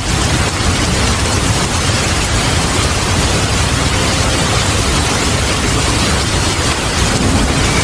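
Heavy, steady rain with a low rumble of thunder underneath.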